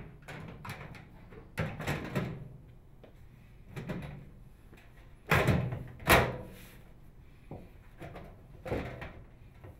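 Sheet-metal outer cover of a Frigidaire microwave oven being slid back onto the cabinet, with a series of knocks as it is aligned; the two loudest come about five and six seconds in.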